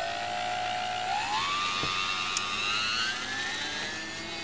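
Radio-controlled Protech Cessna 400 seaplane model's motor and propeller whining as the throttle is opened for a take-off run across the water, the pitch rising in steps about a second and two seconds in.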